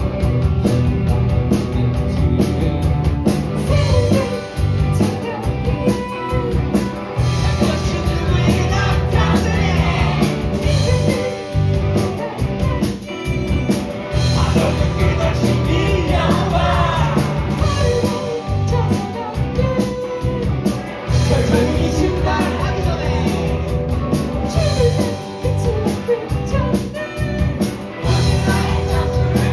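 Live rock band playing a song, with singing over the band.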